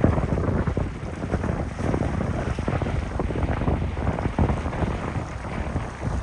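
Wind buffeting the microphone over the low rumble of a twin-engine fishing boat running through the inlet, louder at the start and easing a little after the first second.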